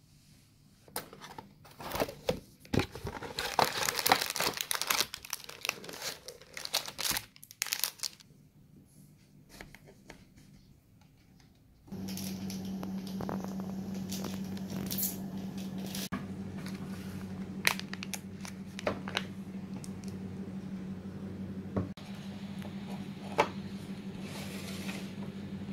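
Plastic food packaging crinkling and tearing as a box of biscuits is handled and opened, in dense bursts for several seconds. After a pause, a steady low hum sets in with a few sharp ticks.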